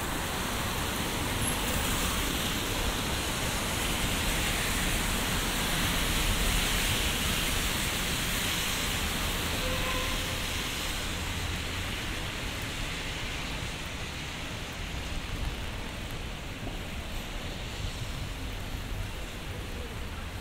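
Steady hiss of summer rain and car tyres on a wet city street. It swells to a peak about six seconds in and eases toward the end.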